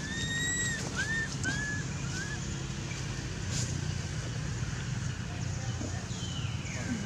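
Infant long-tailed macaque giving thin, whistle-like coo calls: one held note, then three short arched ones in quick succession, and a falling call near the end, over a steady low rumble.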